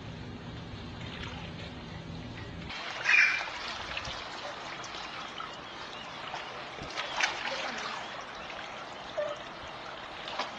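Swimming-pool water splashing and lapping as a baby kicks and paddles, with sharp splashes about three seconds in, around seven and nine seconds, and just before the end, the first the loudest. Before the first splash a low steady hum runs and then cuts off.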